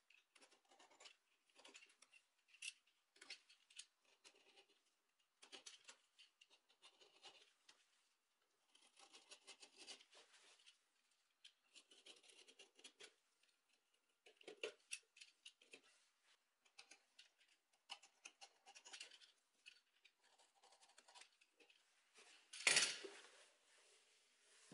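Utility knife slicing off excess upholstery material along a stapled edge, in short runs of quiet, scratchy cutting strokes. There is one louder knock near the end.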